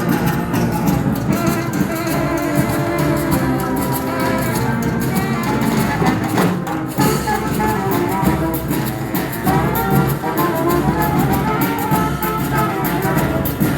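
A street band playing live music, loud and unbroken.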